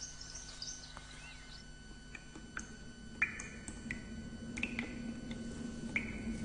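Faint, scattered short chirps, squeaks and clicks, with a low hum growing louder over the second half.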